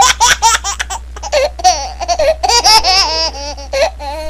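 High-pitched laughter in quick repeated pulses, turning into longer warbling notes about halfway through.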